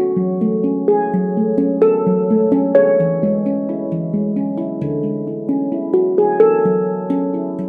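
Veritas Sound Sculpture stainless-steel handpan in F# Pygmy tuning (18 notes) played with the fingers: a flowing run of struck notes that ring on over one another, with a few harder strokes standing out.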